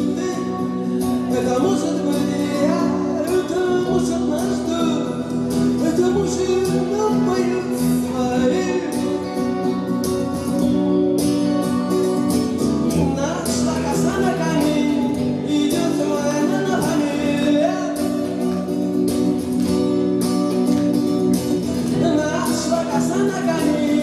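A song played live on an acoustic-electric guitar and an electric guitar, with a male voice singing at times.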